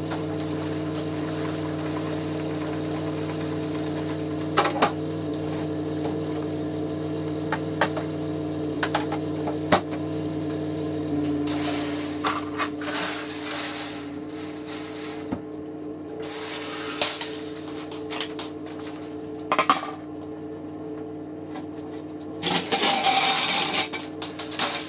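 Metal clanks, knocks and rattles of lawn equipment being handled and loaded onto a utility trailer, with a louder stretch of scraping and clatter near the end as a pull-behind aerator is pushed up the trailer's steel mesh ramp. A steady low hum runs underneath.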